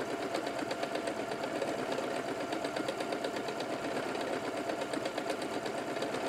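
Pfaff Ambition 610 sewing machine running steadily, sewing a decorative loop-the-loop quilting stitch, with a rapid, even ticking of the needle mechanism.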